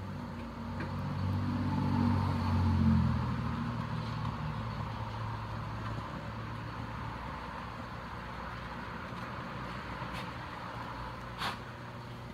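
A motor vehicle's engine drones past, swelling to its loudest two to three seconds in and then fading to a steady low hum. A single sharp click comes near the end.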